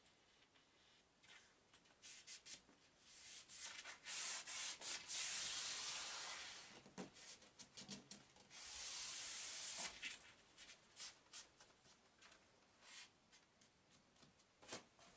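Thermal wall liner paper being rubbed and pressed flat by hand, a dry rubbing and rustling noise. It comes as two longer rubbing stretches in the middle, with short scrapes and rustles before and after.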